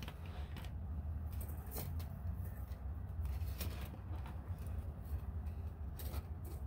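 Thin craft wire being handled and wrapped around the tip of a wire umbrella frame: scattered light clicks and scrapes of wire on wire, over a steady low hum.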